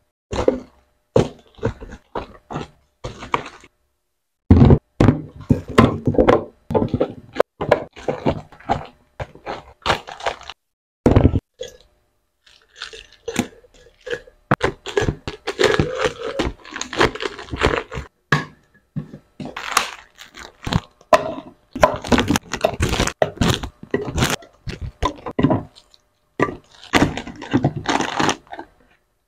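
Plastic-wrapped snack packets and candies crinkling and rustling as they are handled and dropped into clear plastic canisters and glass jars, with irregular clicks and knocks against the containers.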